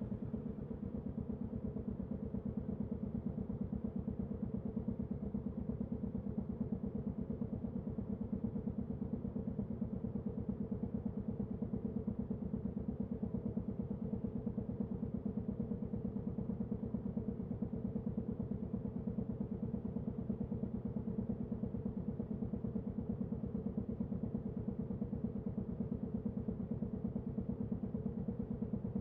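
Royal Enfield Classic 350's single-cylinder engine and exhaust running at a steady, unchanging engine speed, with an even, rapid beat.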